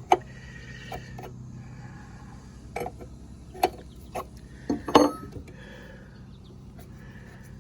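Metal tools and parts clicking and clanking as a pressure washer pump's valve is taken apart by hand: a run of sharp, irregular knocks, the loudest about five seconds in, over a steady low hum.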